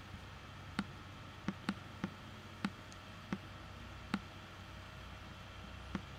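Computer mouse clicks, about eight short sharp clicks at irregular intervals, over a steady faint background hum.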